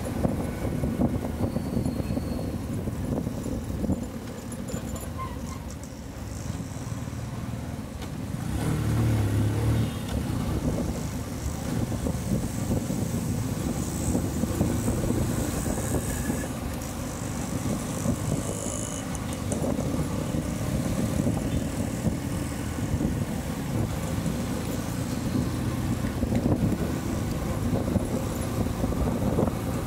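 Motorcycle engine running as the bike rides along in traffic, heard from the rider's seat. It swells louder about eight seconds in, then settles back to a steady run.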